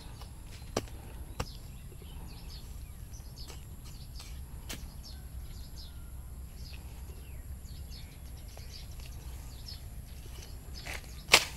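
A small hand hoe knocking into sandy soil a few times, loudest in a quick cluster near the end, over low wind rumble and scattered faint bird chirps.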